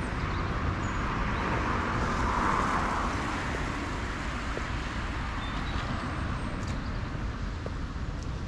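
Street traffic on wet roads, with a passing vehicle's tyre hiss swelling and fading about two to three seconds in over a steady low rumble.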